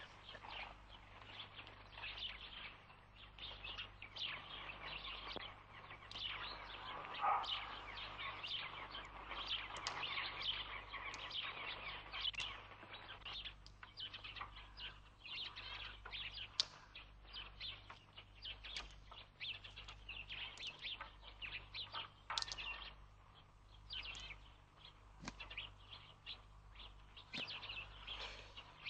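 Small birds chirping and twittering in a busy, continuous chorus, over a steady low electrical hum.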